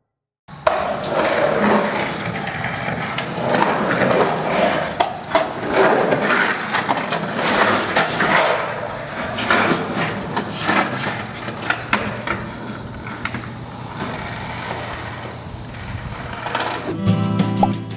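Skateboard on concrete: the wheels rolling with repeated clacks and knocks of the board, under a steady high-pitched tone. Music comes in near the end.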